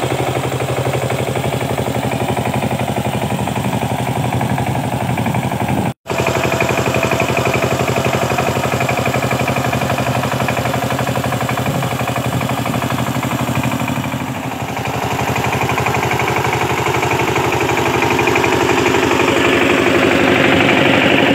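Kamco Diesel ER 90 single-cylinder engine of a walk-behind power tiller running steadily with a rapid, even firing beat while tilling wet paddy mud. It cuts out for an instant about six seconds in and grows louder near the end.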